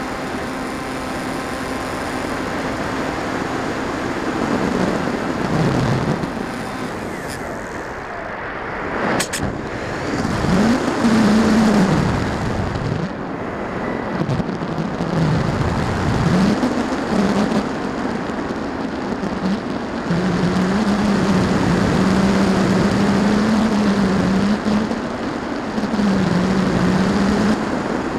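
Wind rushing over the onboard camera's microphone on an electric RC glider in flight, with the electric motor's hum swooping up and down in pitch as the throttle changes, then holding fairly steady over the last several seconds. There is a brief sharp click about nine seconds in.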